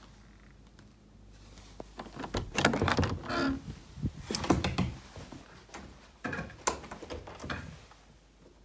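Wooden door being opened and handled: clicks and knocks from the knob and latch, with a brief squeak about three seconds in.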